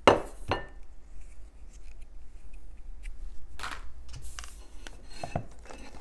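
Plastic palette plate clattering and knocking as it is picked up and handled on a wooden work table. There are several sharp knocks, the loudest right at the start.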